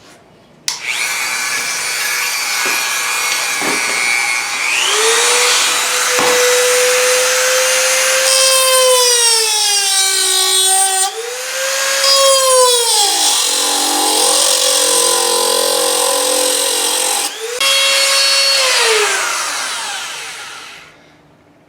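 Dremel rotary tool with a cut-off wheel running at high speed while cutting into a metal door strike plate. Its whine dips in pitch and recovers several times as the wheel is pressed into the metal, stops briefly about seventeen seconds in, and winds down near the end.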